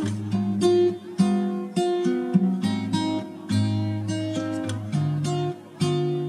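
Background music of strummed acoustic guitar chords, in a steady rhythm of sharply plucked notes.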